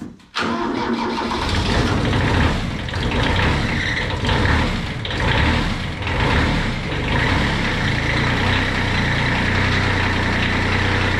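Kubota B7200's three-cylinder diesel engine starting and running. It is uneven for the first several seconds, then settles into a steady idle.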